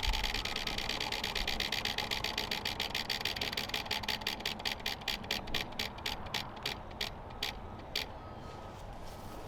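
Prize wheel spinning, its pointer clicking rapidly against the pegs; the clicks slow and spread out steadily until the last few single ticks and the wheel stops about eight seconds in.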